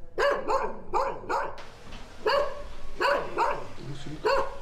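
A dog barking repeatedly: a quick run of four short barks, then about four more spaced further apart.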